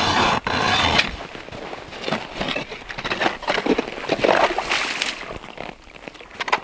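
Hand-cranked ice auger grinding and scraping as its blades cut down through lake ice, in uneven crunching strokes. Near the end the auger breaks through and water wells up into the hole.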